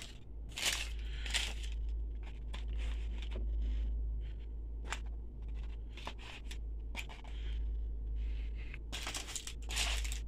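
Paper burger wrapper crinkling and rustling as it is handled, in irregular bursts, loudest around the first second and again near the end.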